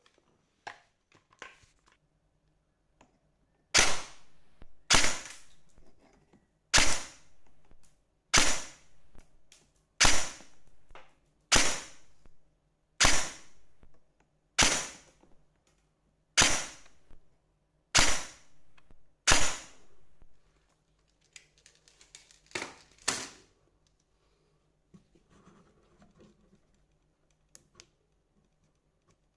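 ICS MARS PDW9 airsoft electric gun firing single shots on semi-auto: about a dozen sharp shots roughly a second and a half apart, then two quieter ones in quick succession.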